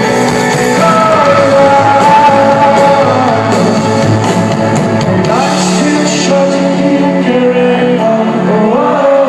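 A rock band playing live with a lead vocal over the band. The song is loud and continuous.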